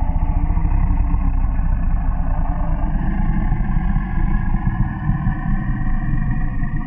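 An engine running with a rapid, pulsing low rumble that slowly grows quieter.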